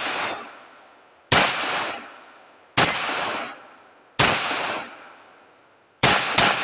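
Five 9mm shots from a Rock Island Armory M1911A1 pistol, about a second and a half apart, with the last two in quick succession as a double tap. Each shot echoes and dies away over about a second. Steel plate targets ring as they are hit.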